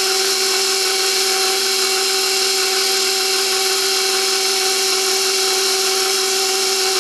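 KitchenAid Deluxe Edition stand mixer running with its dough hook turning through flour, the motor giving a steady whine.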